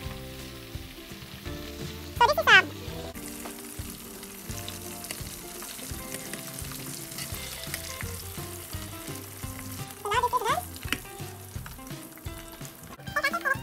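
Chicken thighs deep-frying in hot oil in a pan: a steady sizzle, with a spatula and tongs stirring and turning the pieces. Short, loud wavering cries cut in about two seconds in and again about ten seconds in, over faint background music.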